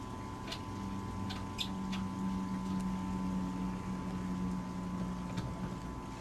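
Steady machinery hum with a thin high whine in a boat's engine compartment, and a few short squeaks and clicks from hands working on the engine, most of them in the first couple of seconds and one near the end.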